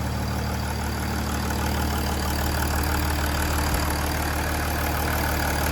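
Mercedes-Benz C-Class W204 engine idling steadily. It is now starting and running after a short between two CAN-bus wires, which had stopped it from cranking, was repaired.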